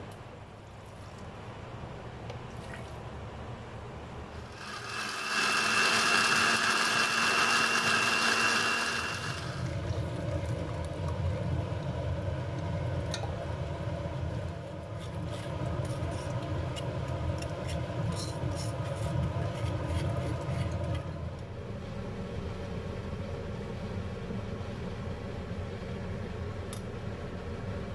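Electric blender running for about four and a half seconds, a loud steady whine as it grinds boiled fish and bones with water, starting about five seconds in. After it stops, a lower, steady rushing noise follows while the blended fish liquid is strained through a steel sieve into a pot.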